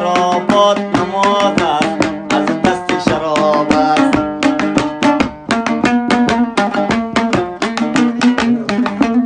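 Instrumental Afghan dambura music: the two-string long-necked dambura strummed in fast, even strokes over a steady drone, with percussion. The strumming breaks off briefly about halfway through, then carries on.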